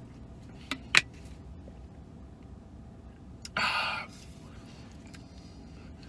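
Two sharp plastic clicks about a second in, the second louder, as a plastic shaker bottle's flip cap is snapped shut. A brief rushing noise, about half a second long, follows a few seconds later.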